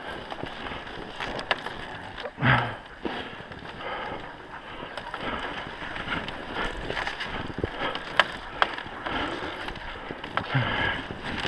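Wooden dog sled running over a packed snow trail behind a husky team, a steady sliding noise with wind on the microphone and scattered small knocks and rattles, and one louder thump about two and a half seconds in.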